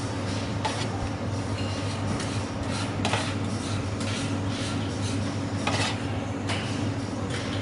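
Metal kitchen utensils clinking and scraping against pots and pans, with a few louder clanks, over a steady low hum.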